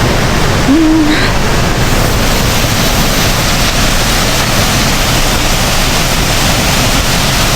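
Waterfall: a steady, loud rush of falling water, with a brief voice-like sound about a second in.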